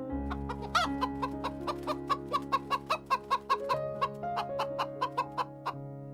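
A chicken clucking in a rapid, even run of short clucks, about four to five a second, after one louder call near the start, over background music.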